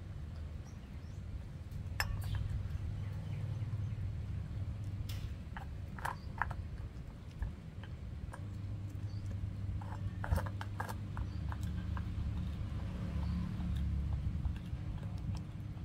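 A puppy eating rice and pork bones from a steel bowl: scattered crunching clicks, clustered about six seconds in and again around ten to eleven seconds, over a low steady rumble.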